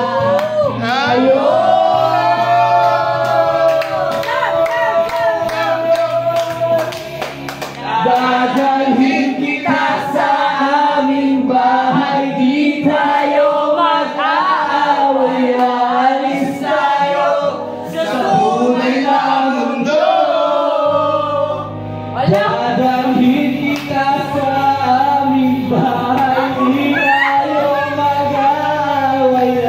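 A man singing a Tagalog love song into a karaoke microphone over a backing track, holding long notes, the longest near the start.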